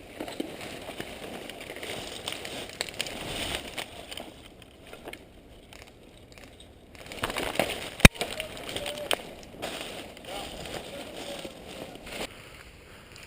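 Irregular rustling and crunching with many small clicks, like movement through dry brush and leaves, and one sharp click about eight seconds in, the loudest sound.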